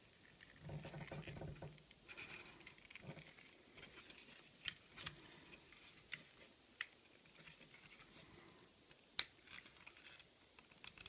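Faint handling of a hard plastic Transformers Predaking figure: light rustling and a few short, sharp plastic clicks as parts are pressed and worked into their slots.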